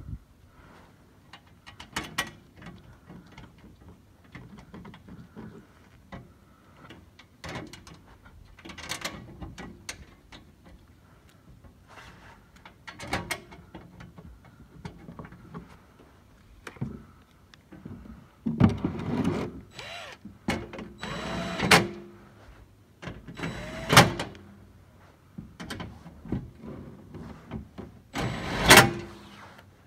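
Hand tools and car parts being handled during an oil change: irregular clicks, clinks and knocks, with four louder, longer bursts of mechanical noise in the second half.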